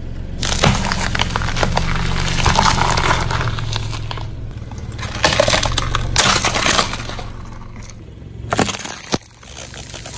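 A car tyre rolling over and crushing things one after another, first red onions and then plastic tubs of jelly: crunching, cracking and splitting, with the loudest bursts around the middle, over a steady low engine hum that fades out near the end.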